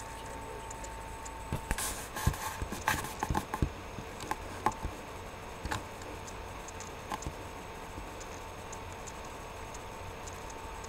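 Computer keyboard and mouse clicks: a quick run of taps about two seconds in, then a few scattered single clicks, over a steady faint hum.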